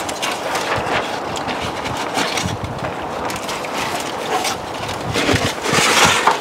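Crumpled aluminum foil crinkling and metal tongs scraping as rib slabs are pulled out of their foil, over a steady rushing noise. Near the end a jacket sleeve brushes right over the microphone with a loud rustle.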